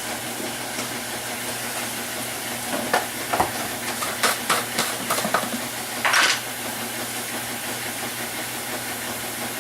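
Kitchen prep handling sounds: a run of light knocks and taps against a bowl and containers, then a short scraping rustle, over a steady background hum.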